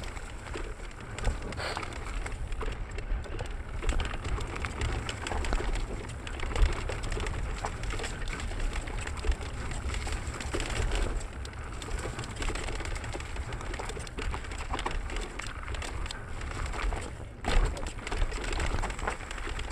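Mountain bike riding fast down a dirt forest trail, heard from a camera on the bike: wind buffeting the microphone as a low pulsing rumble, tyres running over dirt and roots, and frequent sharp knocks and rattles from the bike over bumps.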